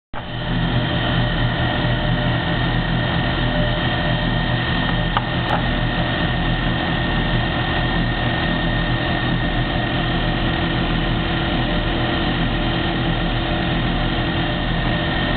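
Small lathe running steadily while machining a brass nipple: an even hum with a steady whine. Two faint clicks come about five seconds in.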